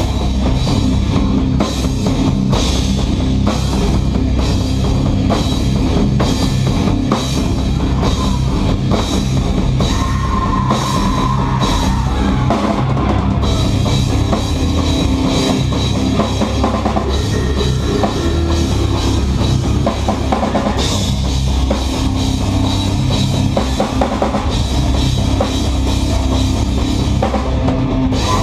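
Live rock band playing loud and steady: drum kit with regular cymbal hits, over bass and guitars.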